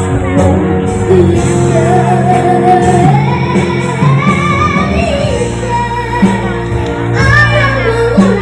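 A child singing a melody of long held, wavering notes over backing music.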